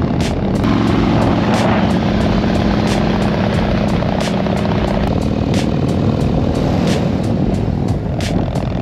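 Harley-Davidson V-twin touring motorcycles riding at highway speed: a steady engine rumble mixed with wind noise, with music playing over it.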